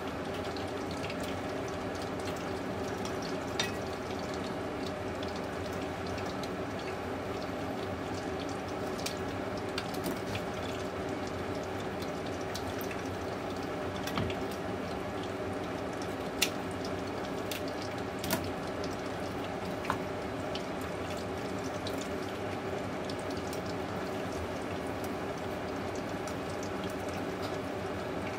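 Kitchen knife and scissors working on a rabbitfish on a plastic cutting board, with a handful of short sharp clicks and taps spread through, over a steady background hum.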